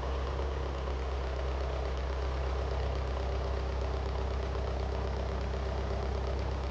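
A motor-vehicle engine idling steadily, with an even low hum.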